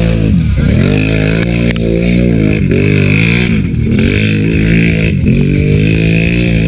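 ATV engine revving hard while driving through deep mud, the throttle easing off and opening again over and over so that the pitch falls and climbs back about once a second.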